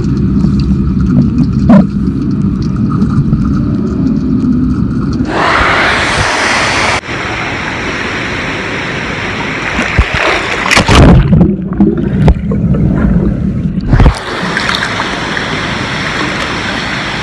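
Swimming-pool water heard through a camera's microphone moving in and out of the water: muffled underwater rumbling and gurgling at first, then water rushing and sloshing over the microphone as it breaks the surface about five seconds in, giving way to a steady hiss of water at the surface. The microphone goes under again for a few seconds past the middle, then comes back up.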